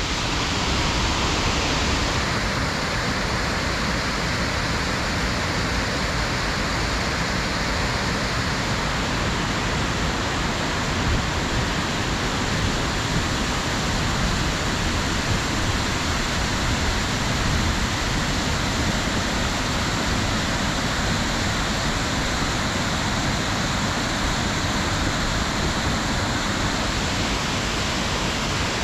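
Rushing water of a creek running fast over rocks below a small waterfall: a steady, unbroken noise.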